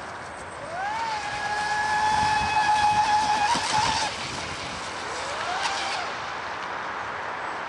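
Radio-controlled speedboat's motor running at speed: a high whine that rises in pitch about a second in, holds steady for about three seconds, drops away, then rises again briefly near six seconds, over a steady hiss.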